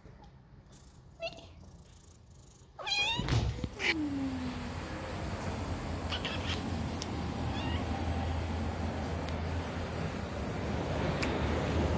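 Kittens meowing: a faint meow about a second in, then two clearer meows about three and four seconds in, the second falling in pitch. After that comes a steady background hiss with a few faint ticks.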